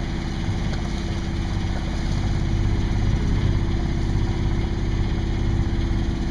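A sailboat's auxiliary engine idling steadily at the dock.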